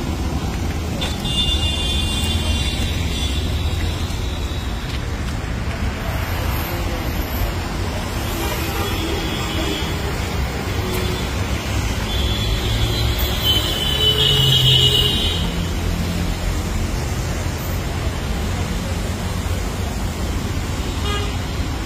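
Street traffic noise: a steady low rumble, with brief high-pitched tones about a second in and again around thirteen to fifteen seconds in.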